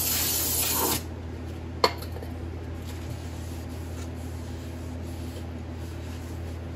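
Aerosol brake cleaner hissing onto a new brake rotor for about a second, to strip the factory oil coating. A sharp click follows, then a shop rag faintly rubbing the rotor face.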